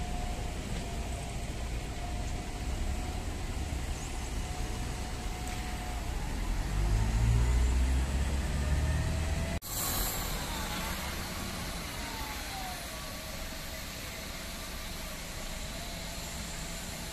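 Street traffic: a city bus pulls away with its engine running and a steady whine, and the low rumble swells as a car passes close by. After an abrupt cut, steady road traffic noise follows.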